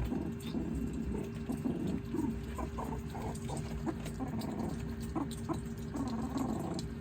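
Meerkats giving many short calls in quick succession, with light clicks mixed in.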